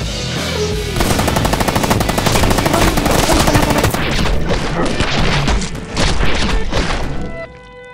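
Rapid automatic gunfire, a long stream of shots fired in quick succession, starting about a second in and stopping shortly before the end. The toy gun on screen could not make it, so it is a dubbed machine-gun sound effect.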